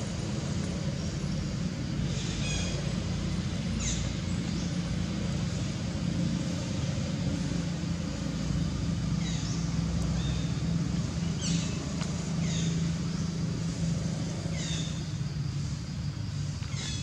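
Steady low engine-like rumble, with short high chirps that drop in pitch every second or two.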